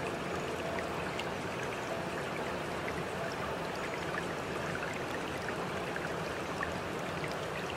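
Steady running-water ambience with scattered small drip-like ticks.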